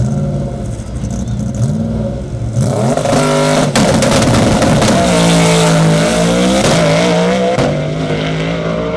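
Ford Mustang drag car with a manual gearbox revving up and down at the starting line, then launching hard about two and a half seconds in. The engine note climbs under full throttle and breaks off briefly at each gear change as the car pulls away down the track.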